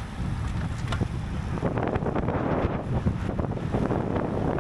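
Wind buffeting the microphone of a camera on a racing bicycle moving at speed. The rushing gets fuller about two seconds in.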